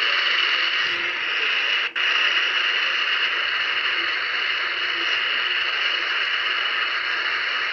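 Weather radio receiver giving a steady static hiss between broadcasts, dropping out briefly about two seconds in and cutting off near the end.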